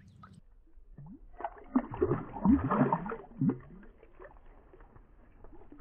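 Water splashing and gurgling in a short cluster of irregular splashes, from about one and a half to three and a half seconds in, as a caught largemouth bass goes back into the pond water.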